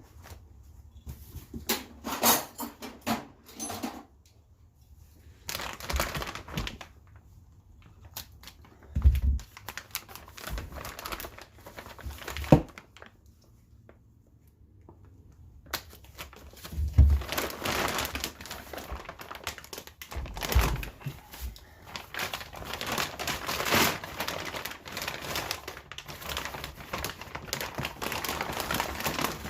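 Thick, heavy plastic wrapping being handled and pulled off a crankshaft: bursts of crinkling and tearing, with a few dull thunks. The rustling pauses briefly about halfway through, then runs on almost without a break.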